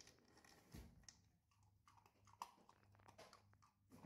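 Husky puppy eating dog food from its bowl: faint, irregular chewing with small clicks and crackles throughout.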